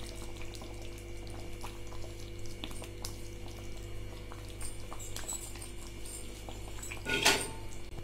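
Thick curry sloshing and gently bubbling in an aluminium pot as the pot is swirled by hand to turn the meatballs, with faint small clicks over a steady low hum. A brief louder noise comes about seven seconds in.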